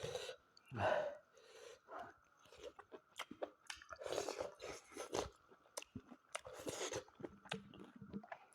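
A person chewing mutton curry close to the microphone: irregular wet clicks and smacks, with a few louder breathy puffs in between.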